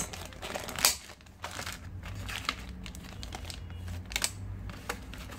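Clear plastic parts bags crinkling and rustling as they are handled, in irregular bursts with a few sharper crackles.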